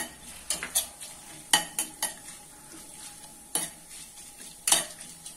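Whole spices (cinnamon, cloves and fennel seeds) sizzling in coconut oil in a stainless steel pot. A spatula scrapes and knocks against the pan several times as they are stirred.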